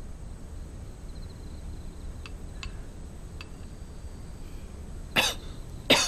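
A person coughing twice near the end, the two coughs a little under a second apart. Before them come a few faint light clinks of a porcelain spoon against a bowl as medicine is spooned up.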